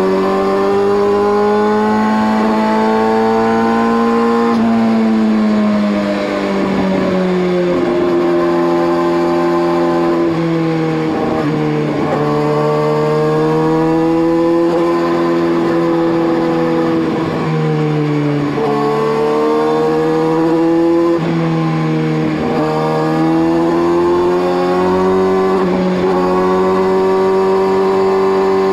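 Motorcycle engine running under way, heard from on board: the revs climb slowly and then fall back sharply several times as gears change.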